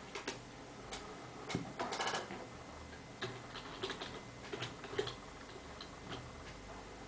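Typing on a computer keyboard: short single key clicks at an uneven pace, sometimes two or three in quick succession, stopping about a second before the end.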